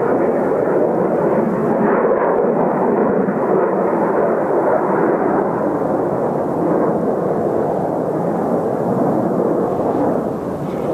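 Kawasaki T-4 jets of the Blue Impulse team, their turbofan engines giving a steady, loud roar that eases a little near the end.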